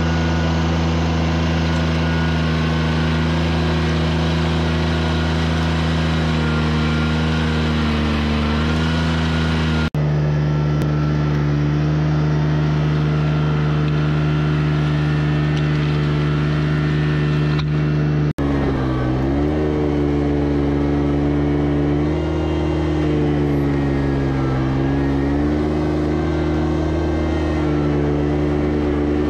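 Engine of the machine running a custom-built bush hog, working hard at a steady speed while cutting a trail through brush. Its pitch sags and recovers several times as the load changes, and the sound breaks off abruptly twice.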